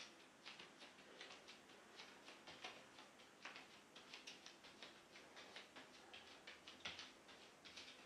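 Faint, irregular light clicks and ticks, several a second: bare feet stepping on tiptoe across a rubber foam floor mat.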